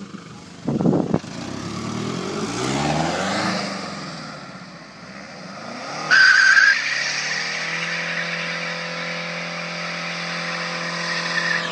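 Mercedes C220 CDI's four-cylinder diesel engine revving up and down, then about six seconds in the rear tyres break loose with a sudden loud squeal and keep spinning in a burnout, with the engine held at steady high revs.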